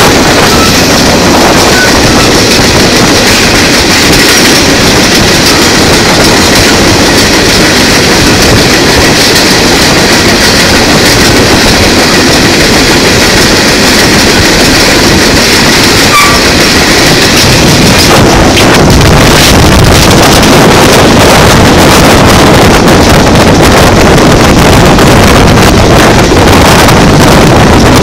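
Moving train heard from the outside of a car: steady rumble and clatter of the wheels on the rails, mixed with wind buffeting the microphone, which grows heavier about two-thirds of the way in.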